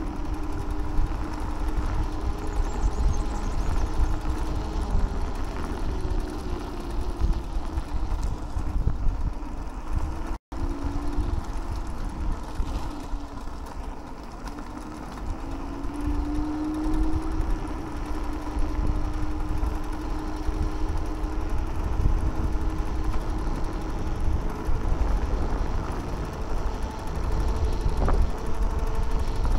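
Teverun Blade GT II electric scooter riding along, its motor giving a steady whine that wavers in pitch and rises for a stretch in the middle, over a low rumble of wind and road. The sound cuts out for a moment about ten seconds in.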